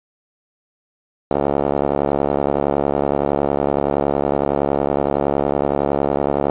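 A steady, buzzy electronic tone with many overtones starts abruptly about a second in and holds without change: an outro sound on the channel logo card.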